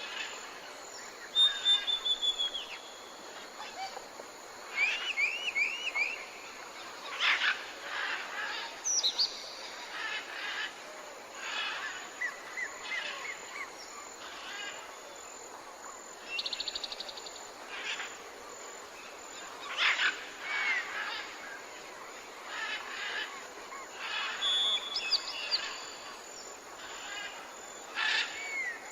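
Several songbirds calling and singing over a faint steady hiss: short whistled phrases, repeated chirps and a few fast trills, overlapping throughout.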